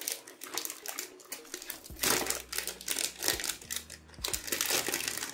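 Plastic wrapping on a cube's packaging crinkling as it is handled and unwrapped. The crackles are irregular, loudest about two seconds in and again near the end.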